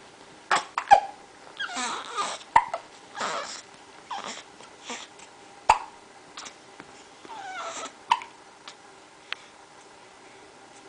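A young baby hiccuping, several sharp, sudden hiccups a few seconds apart. Between them the baby makes soft breathy grunts and short vocal noises.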